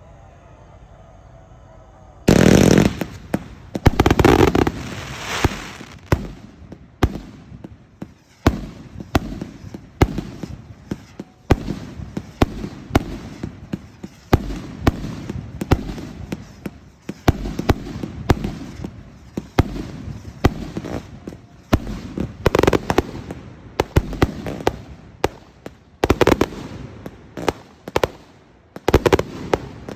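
Professional fireworks display: sharp, loud bangs from fireworks going off in quick succession, about one a second. The bangs start suddenly about two seconds in, with heavier clusters near the start and toward the end.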